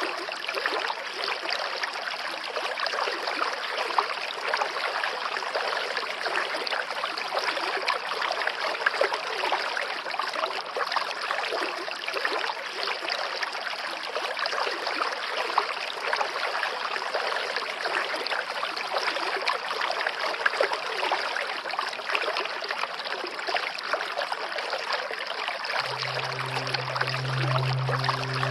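Rain falling steadily in a dense, even patter of drops. Near the end a low held tone from background music comes in under it.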